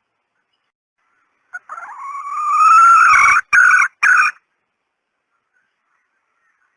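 Female red junglefowl (jungle hen) calling, played as a decoy call to lure wild junglefowl: a short note, one long drawn-out call that rises slightly in pitch, then two short clipped notes.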